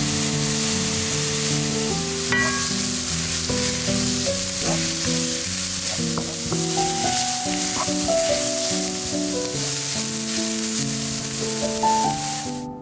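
Diced onion and minced garlic sizzling in hot fat in a frying pan, stirred with a wooden spatula, with a few light taps and scrapes. Soft background music plays underneath.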